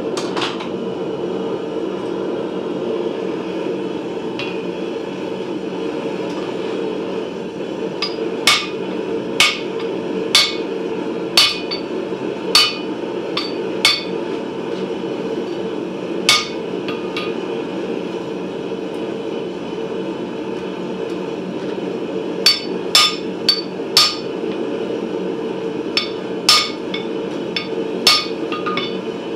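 Hammer blows on a blacksmith's flatter, driving it against the steel of a forged sickle blade on the anvil to smooth out the hammer marks. The sharp ringing strikes start about eight seconds in and come roughly a second apart, with a quicker run of blows later on, over a steady low hum.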